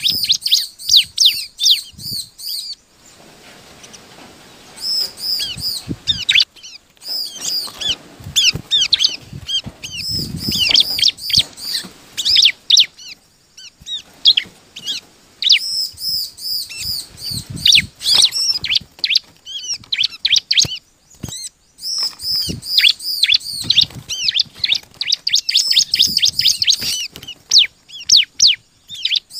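Bar-winged prinia (ciblek) singing: bouts of fast, high, repeated chirps broken by short pauses, with a quieter stretch a few seconds in.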